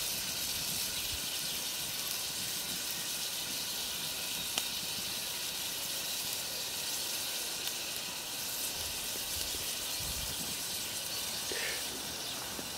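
Young jackfruit stew frying in oil in a Dutch oven over an open fire: a steady sizzling hiss as dark soy sauce goes in, with one light tick about four and a half seconds in.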